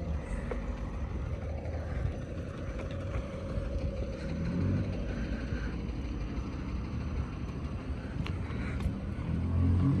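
A vehicle engine running nearby over low outdoor street rumble, louder near the end.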